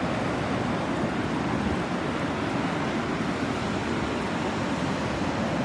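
Steady rushing noise of sea surf and wind on a beach, with no distinct breaks or events.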